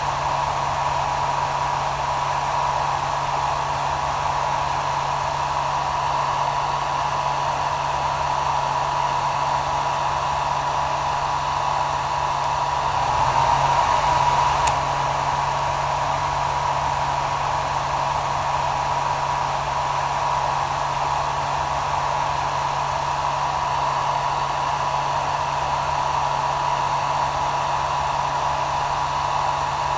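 Hair dryer running continuously: a steady airy hiss with a constant whine and a low motor hum, swelling slightly for a moment about halfway through.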